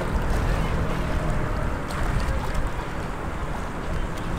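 Wind buffeting the microphone over open water, a rough, uneven low rumble. A faint motor hum from a boat on the water sits under it and fades out about a second and a half in.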